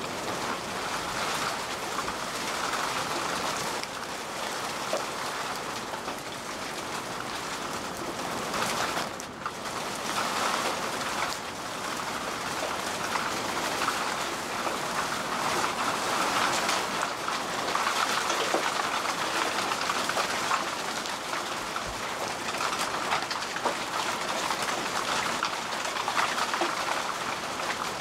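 Heavy rain falling steadily in a cloudburst, a dense even hiss of downpour on road and water.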